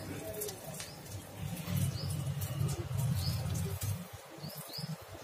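A small dollop of moong dal batter frying in hot oil, with faint crackles. A low rumble runs for a couple of seconds in the middle, and a bird gives a few short rising chirps in the background.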